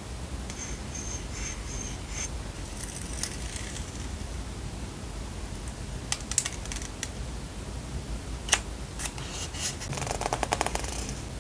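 Paper and packaging handled close to the microphone: light rustling and crinkling, a few sharp clicks, and a quick run of ticking about ten seconds in.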